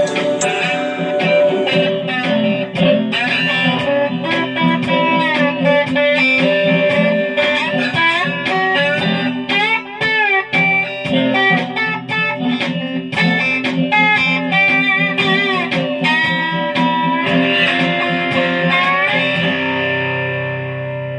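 Guitar played with a slide: plucked notes with gliding pitch slides and wavering vibrato over steady ringing lower notes. Near the end the last notes ring out and fade, leaving a low steady hum.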